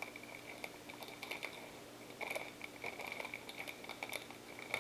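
Small metal screws and steel mounting brackets clicking and tapping on a stone countertop as they are picked up and sorted by hand. The light clicks come in small clusters about a second apart.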